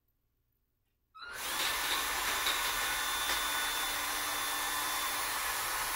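Power drill spinning up about a second in and then running steadily, twisting cords of plastic-bag strips into rope.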